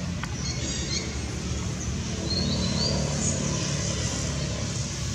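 A few short, high bird chirps about two and a half seconds in, over a steady low rumble of outdoor background noise.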